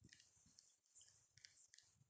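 Wood campfire crackling faintly, with irregular small pops and snaps, one sharper pop near the end.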